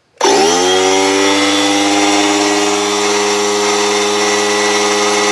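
Husky 3-gallon oil-free pancake air compressor switched on: motor and pump start abruptly, climb in pitch for about a second, then run steadily and loudly as it begins filling its tank.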